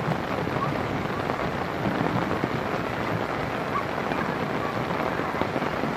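Steady rain falling on a waterlogged grass field, an even hiss that holds level throughout.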